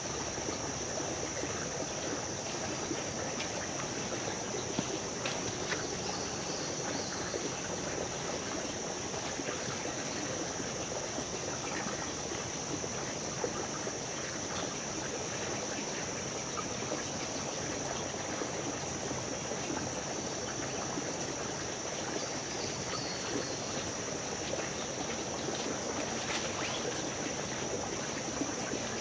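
Creek water flowing and trickling in a steady, even rush, with a steady high-pitched buzz over it and a few faint clicks.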